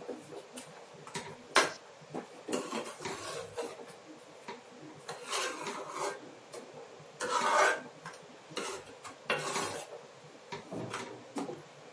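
Steel spoon stirring and scraping a thick masala paste around a metal kadai, in irregular rasping strokes with occasional clinks of metal on the pan.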